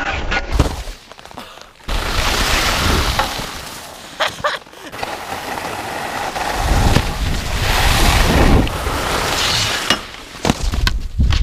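Wind buffeting an action camera's microphone, with skis scraping and sliding over snow. The rushing noise and rumble change abruptly several times as the clips cut.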